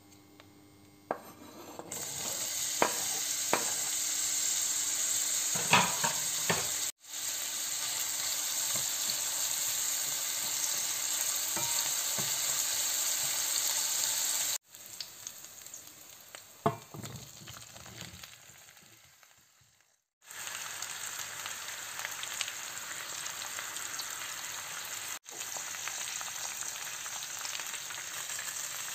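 Sliced onions, and later zucchini slices, frying in hot olive oil in a stainless steel pan with a steady sizzle. A wooden spoon knocks against the pan a few times, and the sizzling cuts off abruptly several times.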